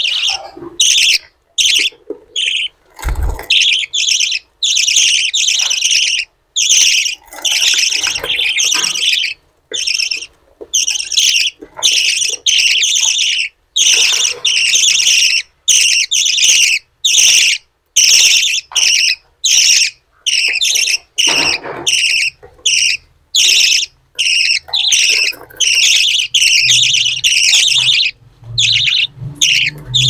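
Budgerigar chicks begging for food while an adult feeds them: harsh, hissy calls repeated in quick bursts, more than one a second, with short breaks.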